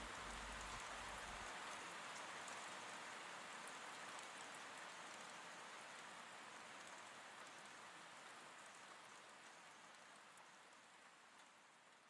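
Steady rain falling, a soft even hiss with scattered drop ticks, slowly fading away.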